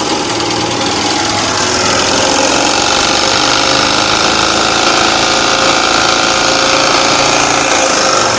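Tigmax TH2900DXE portable generator's GX160 single-cylinder four-stroke petrol engine running steadily and loud, just started up.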